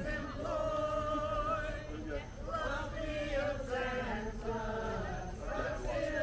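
A group of carolers singing a Christmas carol together, voices holding long notes.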